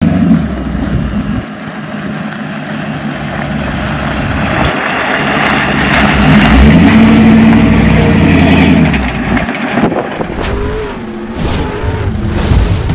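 1989 Chevrolet K5 Blazer's V8 engine and modified exhaust running as the lifted truck drives up on a dirt road, getting louder as it comes close about halfway through, then easing off.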